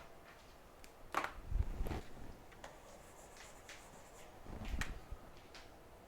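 Small tools and a circuit board being handled on a workbench: scattered light clicks and taps, with two short bursts of louder handling and a dull bump, about a second and a half in and again near five seconds.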